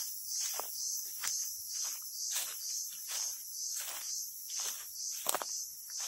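Crickets chirring in a steady, high-pitched chorus that pulses about twice a second, with footsteps crunching on dry leaf litter every half second or so, one louder crunch about five seconds in.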